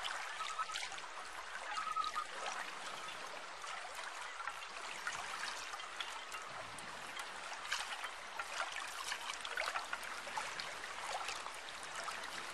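Running water of a stream, a steady rushing, with a couple of short wavering high notes near the start.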